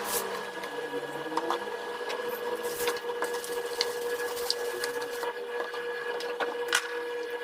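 A small machine running with a steady whirr and a constant hum, with scattered light clicks and knocks.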